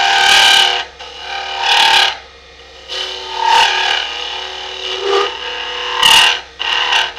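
Skew chisel cutting into a ring blank spinning on a wood lathe, widening a drilled centre hole: a series of short scraping cuts, about six in all, with the lathe running between them.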